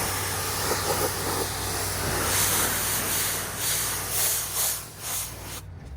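Pressure-washer spray hissing steadily over the low hum of the machine's engine. The spray pulses on and off a few times and then cuts off just before the end, while the engine hum carries on.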